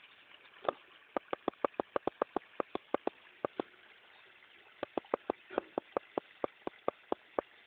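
Faint steady rush of water coming up from the ground, with a single knock and then two runs of sharp clicks, about six a second, louder than the water.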